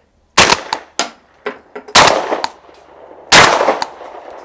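Three suppressed 12-gauge shotgun shots from a Remington Versamax semi-automatic with a Salvo 12 suppressor, about a second and a half apart, each followed by a few quieter clacks. The shots are loud despite the suppressor: "a lot louder" out of this gun.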